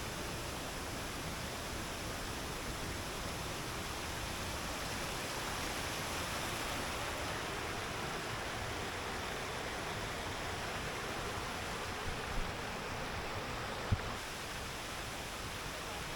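Steady rushing of a waterfall pouring over rock, with two faint knocks near the end.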